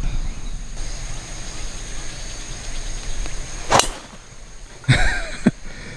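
Golf driver striking a teed ball on a tee shot: one sharp crack about two-thirds of the way in.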